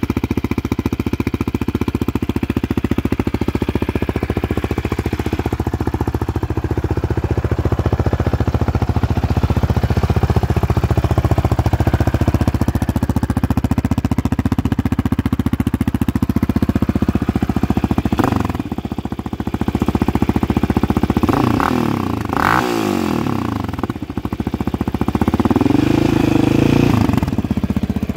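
Yamaha Raptor 700R quad's single-cylinder four-stroke engine, with a Big Gun aftermarket exhaust, idling steadily, then revved in short throttle blips three times in the last ten seconds, the pitch rising and falling with each.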